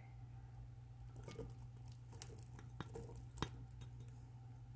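Diced tomatoes being tipped and scraped off a spatula into a bowl of beans: a faint soft patter with three light taps, the last and loudest about three and a half seconds in.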